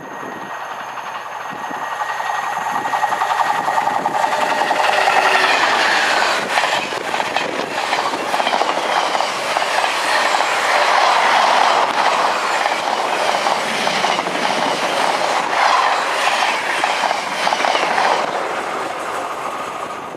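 Freightliner Class 66 diesel locomotive and its long intermodal container train passing close by: the sound grows as the locomotive nears, then the container wagons roll past with a clickety-clack of wheels over the rail joints, fading away near the end.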